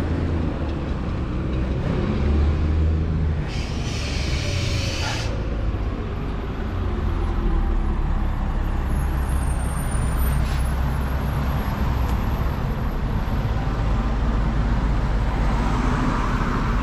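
Street traffic with a steady low engine rumble. About three and a half seconds in, a loud hiss lasts under two seconds, like a heavy vehicle's air brakes letting off.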